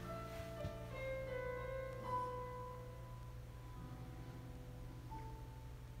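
Slow piano music with held, ringing notes.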